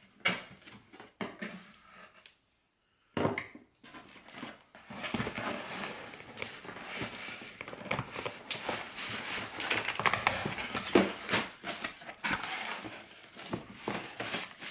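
A cardboard shipping box being opened by hand: the tape is pulled and the flaps scrape and fold back. Brief handling noises come first, then a short silence about two seconds in, then steady rustling and crackling with many sharp scrapes.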